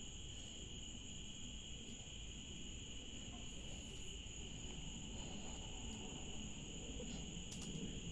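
Steady chorus of night insects trilling continuously at two high pitches, one well above the other.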